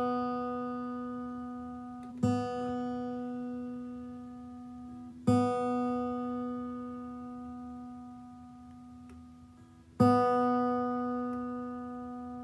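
A guitar's open B string is plucked three times, a few seconds apart. Each single note is left to ring and slowly fade while it is checked against a strobe tuner. The string is sitting a little flat of pitch.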